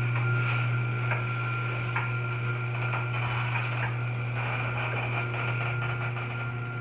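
LiftMaster 8365 chain-drive garage door opener running steadily as it raises the door, a steady motor hum with the chain drive turning. Short high squeaks from the door's rollers come and go on top of it.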